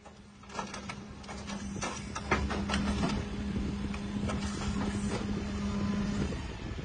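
A motor on a CAESAR self-propelled howitzer hums steadily and stops shortly before the end, while metal clanks and knocks come from the crew working at the gun's breech.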